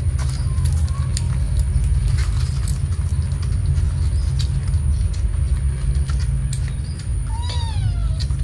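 Cats eating from a steel bowl, with scattered small clicks, over a steady low rumble. Near the end a cat meows once: a short call that rises briefly, then falls.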